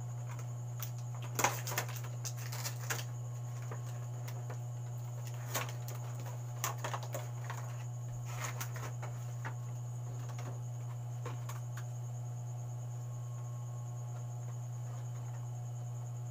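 Scattered light clicks and taps of small objects being handled, most of them in the first ten seconds, over a steady low hum.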